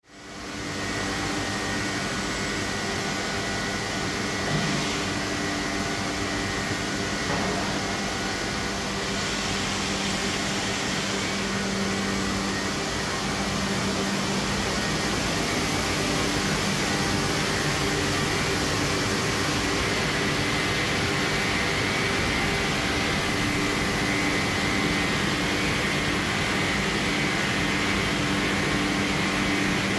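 Automated panel storage system running: the overhead gantry and its vacuum suction lifter give a steady machine hum with a high whine, fading in at the start.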